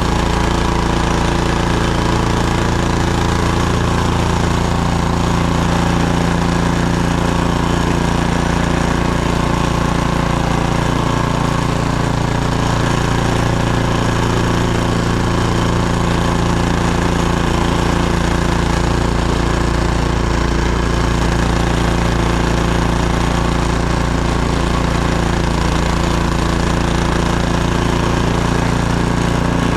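Gas snowblower engine running steadily under constant throttle.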